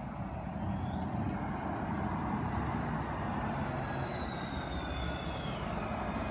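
A car driving past on the road: tyre and engine noise swells to a steady rush, with a high whine that slowly falls in pitch as it goes by.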